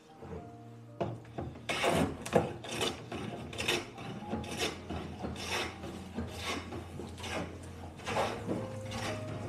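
Hand plane being pushed along a wooden board, a run of rasping strokes about two a second starting about two seconds in.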